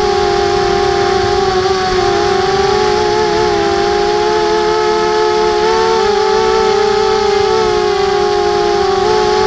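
Emax Nighthawk quadcopter's motors and propellers whining in flight, heard from the camera mounted on the frame, their pitch fairly steady but wavering slightly with small throttle changes.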